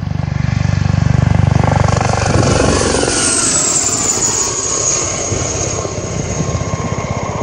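Sud Aviation Gazelle helicopter flying low overhead: the rapid beat of its main rotor builds to its loudest between one and two seconds in. A high-pitched whine then drops in pitch as it passes and moves away.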